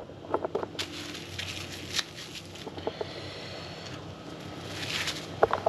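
Cling film crinkling and rustling, with a few light clicks, as wrapped burger patties are handled.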